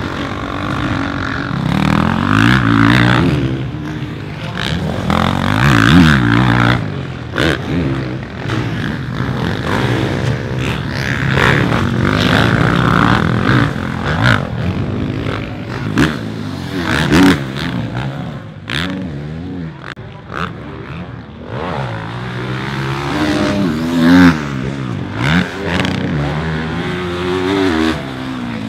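Motocross bikes riding past on a dirt track, their engines revving up and falling away again and again as riders work the throttle over the jumps, with scattered sharp clacks.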